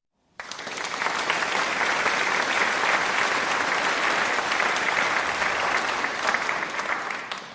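A crowd applauding, a dense, steady wash of clapping that starts abruptly just after the start and fades out near the end.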